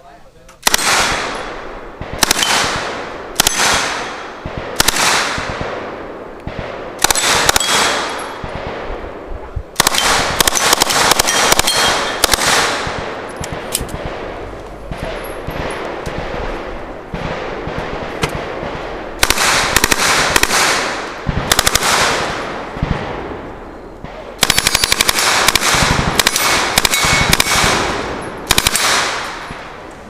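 Submachine guns firing repeated full-auto bursts. Some bursts are short and some run on for a few seconds, with a second or two between them, and each burst rings out across the range as it dies away.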